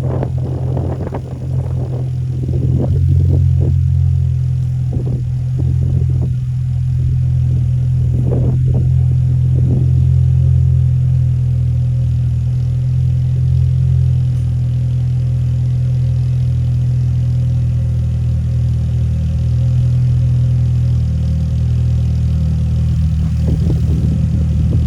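A car engine running steadily with a low, even rumble, with a few short knocks in the first several seconds.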